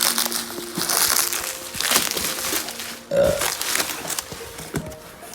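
Packaging crinkling and crackling as it is handled and pulled open, in irregular rustles, with faint background music underneath.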